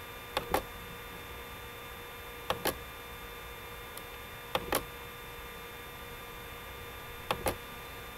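Computer mouse clicking four times, each click a quick pair of snaps, about two seconds apart, over a steady electrical hum.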